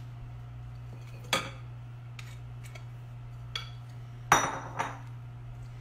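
Kitchen clatter: about half a dozen scattered clinks and knocks of dishes and utensils on the counter, the loudest about four seconds in, over a steady low hum.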